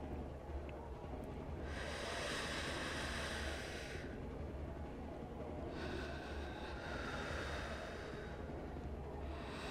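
Two people taking slow, deep breaths in and out together, each breath lasting about two seconds, as a paced breathing exercise to calm a panic attack. A low steady hum runs underneath.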